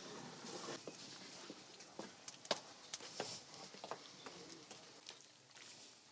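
Wood-fired brick stove being fanned with its built-in bellows: faint scattered clicks, knocks and crackles, with two soft rushes of air about half a second and three seconds in.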